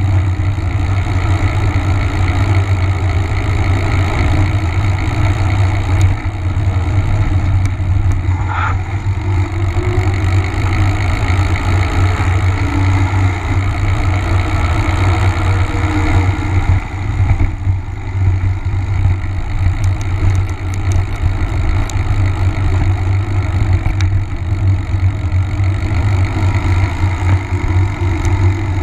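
Wind buffeting the microphone of a camera on a moving mountain bike: a loud, steady rumble.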